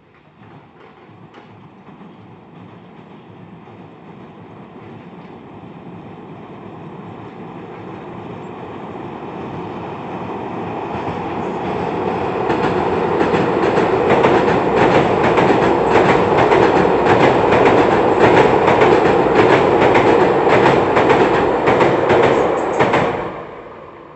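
Nankai Koya Line electric train crossing a steel girder railway bridge: a rumble that builds steadily as it approaches, then about ten seconds of loud, rhythmic clattering of wheels over the rail joints and bridge deck. It cuts off fairly suddenly near the end as the last car clears the bridge.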